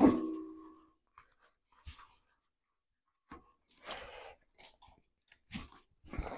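A sharp metallic clank against the steel truck frame rail that rings briefly, followed by quieter clicks and rustling as a ratchet strap is handled on the rail.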